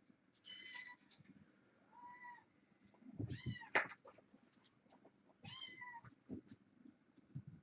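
Young kittens meowing: four short, high, arching meows, with a few soft knocks in between.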